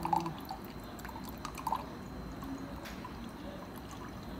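Water running from a SunIce water dispenser's cold tap into a glass in a thin, steady stream, with a couple of brief louder drip-like ticks near the start and before the midpoint.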